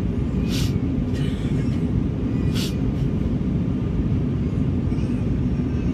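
Steady low rumble of an Airbus A320's engines and airflow in flight, as heard inside the cabin, with a couple of brief hisses.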